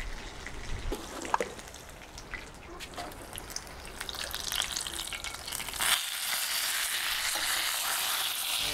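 Flattened chicken frying in fat in a cast-iron skillet: a steady sizzle with scattered pops and clicks, growing louder about six seconds in.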